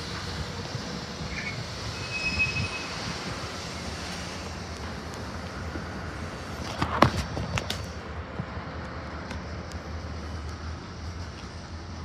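Freight cars rolling slowly past with a steady rumble of steel wheels on rail. A brief high squeal comes about two and a half seconds in, and a sharp loud clank comes about seven seconds in.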